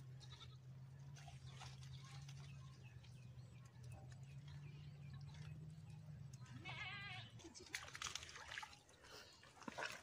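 Faint outdoor sounds: a steady low hum that stops about seven seconds in, and one short wavering animal call just before it stops.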